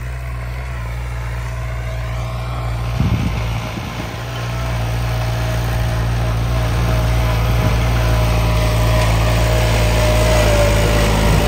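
New Holland 3630 tractor's diesel engine running hard on a trial run, with a steady whine over the engine note. A brief knock comes about three seconds in, and the engine grows louder from about four seconds and then holds steady.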